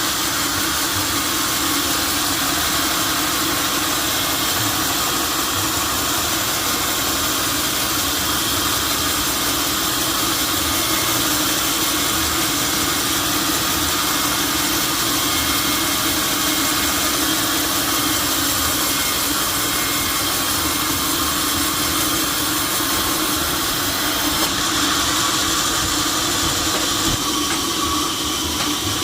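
Sawmill saw running steadily through oak, a continuous loud hum and hiss. The hiss grows a little brighter near the end.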